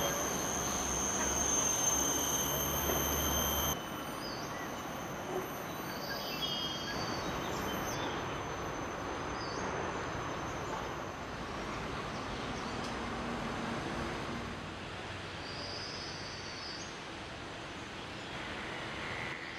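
Tropical forest ambience: a steady high-pitched drone and a few short bird-like chirps over a constant wash of background noise. The low rumble and the highest tone drop away suddenly about four seconds in.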